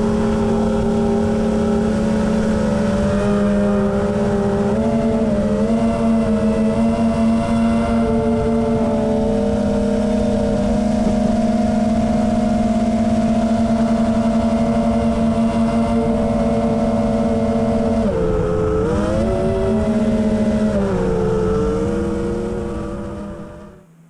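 FPV quadcopter's electric motors and propellers whining at a steady pitch, the pitch dipping briefly about five seconds in and again near the end as the throttle eases, then fading away.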